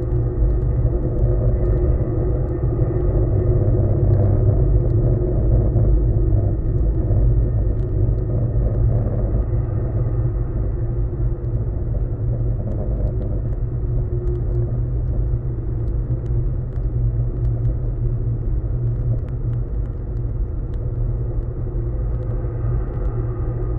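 Steel handrails of the Humber Bridge footbridge vibrating in high winds, picked up through a contact microphone: a steady deep rumble with several held humming tones above it, easing slightly in the second half.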